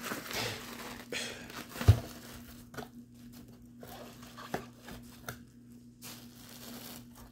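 Bubble wrap crinkling as a wrapped air pistol is handled and put into a cardboard box, with one sharp thump about two seconds in and a few light knocks after.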